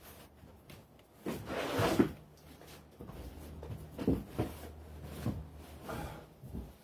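Irregular scraping and knocking, with one sharp knock about two seconds in, over a faint low hum.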